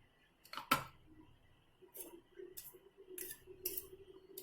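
Clicks and knocks of the plastic blade unit being taken out of a Tupperware Smart Chopper bowl: one sharp click about a second in, then several lighter clicks.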